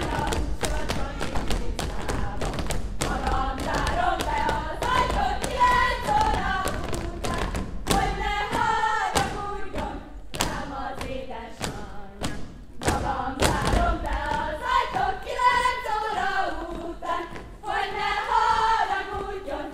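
A group of folk dancers singing a Hungarian folk song together while dancing, with the frequent thuds of their steps and stamps on the stage throughout. The singing thins out for a couple of seconds midway, then comes back.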